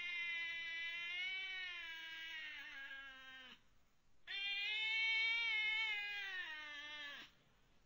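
Young colourpoint kitten meowing: two long, drawn-out meows, each sliding down in pitch as it ends, with a short pause between them about halfway through.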